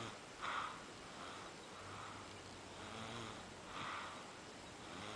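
A young child snoring in his sleep: soft, noisy breaths about every second, some with a low buzzing snore, the strongest about half a second in and again near four seconds.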